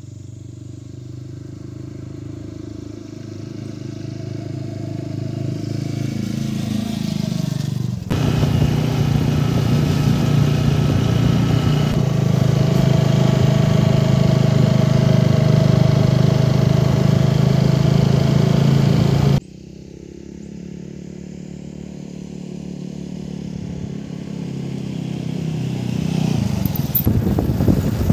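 Motorcycle engine. The bike approaches, growing steadily louder; about eight seconds in the sound jumps to a loud, steady engine note heard from on the moving bike. After a sudden drop about nineteen seconds in, it builds up again.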